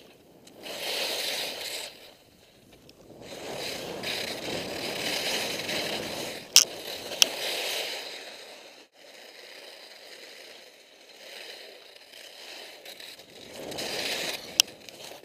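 Skis scraping across snow through a run of turns, in swells a few seconds long with quieter stretches between, and a few sharp clicks.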